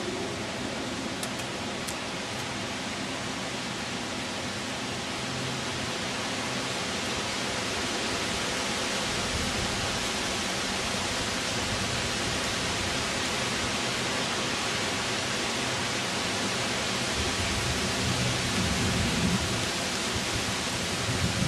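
Steady, even rushing hiss of outdoor ambience, with no distinct events apart from a few faint low bumps around the middle and near the end.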